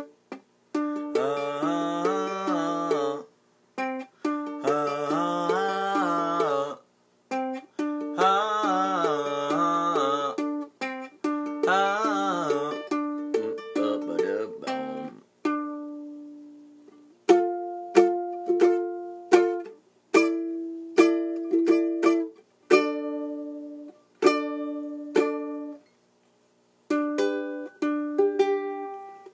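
Music on a plucked string instrument. For about the first fifteen seconds a wavering, sliding melody line runs over strummed chords; after that come single plucked notes and short phrases that ring and die away.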